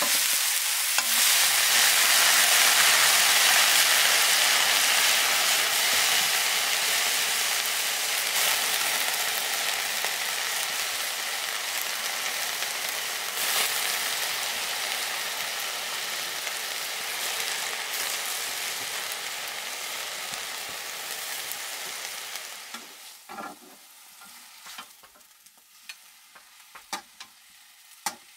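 Food sizzling in hot oil in a pan. The loud sizzle jumps up about a second in, slowly dies down, and falls away near the end, leaving a few light knocks.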